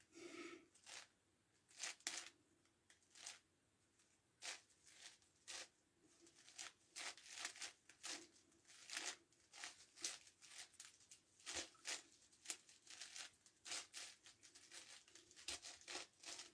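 Faint, irregular plastic clicks and scrapes of a 9x9x9 Rubik's Cube's layers being turned by hand, coming more often in the second half.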